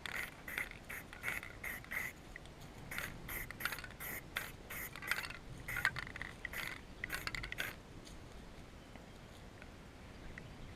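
Rhythmic metallic clicking in short bursts, about three a second, that stops about eight seconds in.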